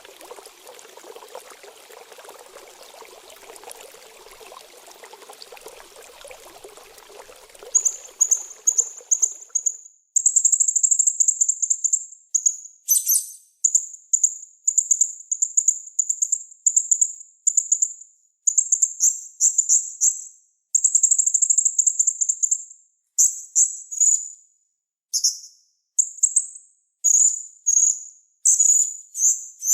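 Running water trickles for about the first third, then a small songbird starts singing: very high, rapid trilled phrases a second or two long, repeated with short gaps and breaking into shorter bursts near the end.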